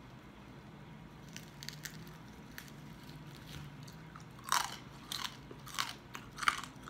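Crunching and chewing of crispy deep-fried pork hock skin (lechon kawali). A few faint crackles come in the first seconds, then four loud crunching bites come in the second half, each well under a second apart.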